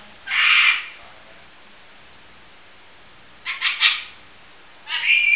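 Pet lorikeet calling in short rasping screeches: one about half a second in, a quick run of three just before four seconds, and another near the end that finishes in a brief clear whistle.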